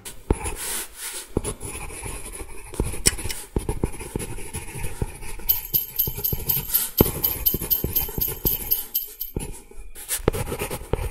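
Battery-powered toy JR commuter train running on its plastic track, its wheels and small gear motor clattering in a fast, irregular run of clicks, with a higher rattle joining about halfway.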